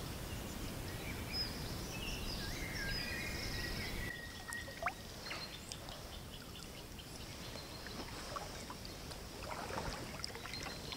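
Birds chirping over a steady river-side hiss of wind and water. About four seconds in, the hiss drops off abruptly, leaving quieter water sounds with scattered faint ticks and a short falling whistle.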